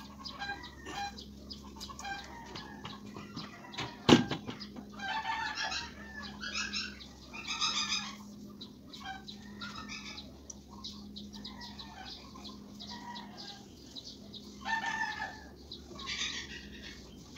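Chickens clucking and calling in short repeated bursts, with one sharp knock about four seconds in and a faint steady hum underneath.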